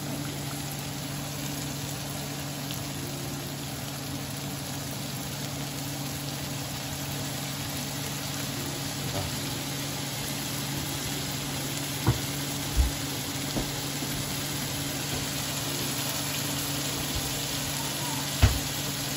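Chopped red onions sizzling as they sauté in oil in a nonstick wok, over a steady low hum. A wooden spoon knocks against the pan a few times past the middle and once near the end.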